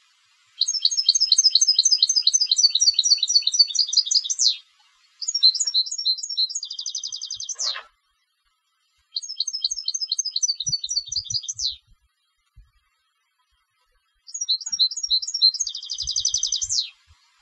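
European goldfinch singing a competition-style song: four phrases of rapid, repeated high twittering notes with short pauses between them, two of the phrases ending in a fast buzzing trill.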